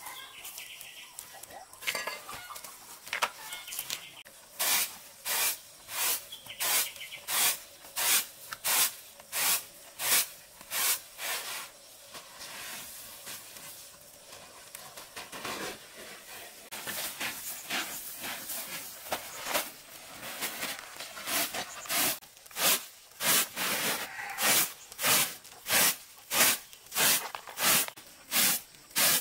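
A round woven winnowing tray fanned back and forth over rice grain, each stroke a whoosh of air, about three every two seconds, blowing the chaff off the grain. The fanning pauses for a few seconds near the middle, when there is a steadier hiss.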